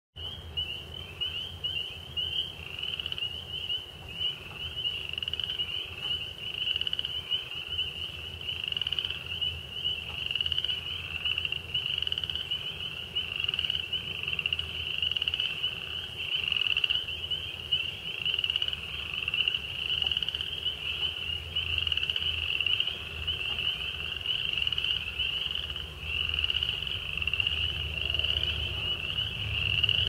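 A dense chorus of many frogs calling at once: a continuous high-pitched din of overlapping calls.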